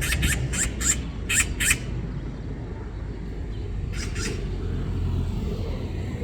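Magpie giving harsh, rattling chatter calls: a quick run of about six in the first two seconds, then two more about four seconds in. This is the scolding call a magpie uses when mobbing a cat. A steady low rumble runs underneath.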